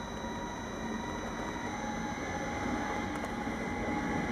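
Siemens ES64F4 (class 189) electric locomotive running slowly on the rails, a low rumble with a steady electric hum, growing louder as it comes nearer.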